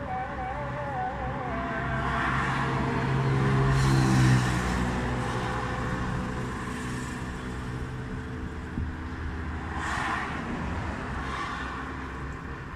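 Road traffic: a motor vehicle's engine growing louder as it passes, loudest about four seconds in and then fading, over a steady hum of further traffic.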